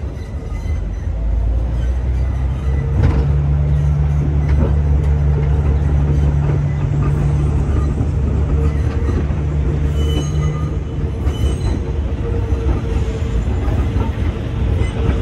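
New R211A subway cars rolling slowly past on the rails, with a steady low hum and a few sharp knocks about three seconds in and again a second and a half later.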